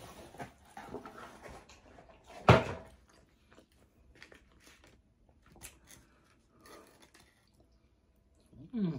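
Close-up mouth sounds of a person eating chicken wings: one loud sharp click about two and a half seconds in, then scattered soft chewing and lip-smacking clicks. A short hum falling in pitch comes from the eater near the end.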